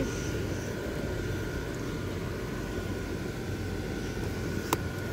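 Electric blower fans of inflatable Christmas yard decorations running, a steady low hum and rumble with a faint steady whine, broken by one sharp click near the end.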